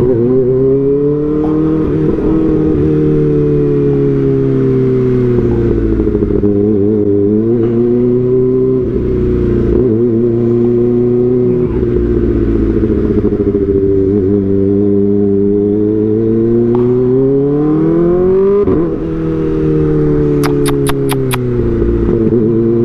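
Kawasaki ZX-4RR's 399 cc inline-four engine under way, its pitch repeatedly rising under throttle and falling back. There are two short drops, about seven and nineteen seconds in, where the rider shifts or closes the throttle.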